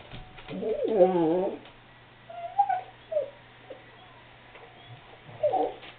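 Cardigan Welsh Corgi whining to be let outside: one drawn-out, wavering whine about a second in, then a few short, fainter whimpers.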